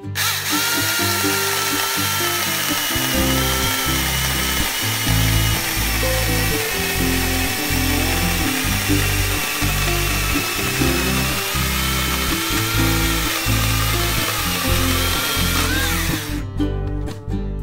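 Cordless 6-inch electric mini chainsaw cutting through a hard, seasoned shimatoneriko (Griffith's ash) log: a steady motor whine with chain rasp, the whine wavering a little as the chain bites, stopping near the end. Background music plays under it.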